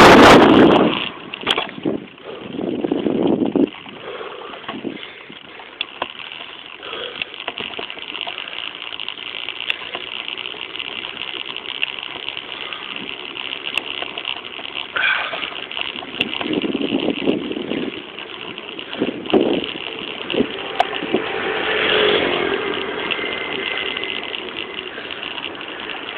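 Bicycle rolling slowly along a paved street, with scattered clicks and rattles from the bike and a few louder rushes of noise.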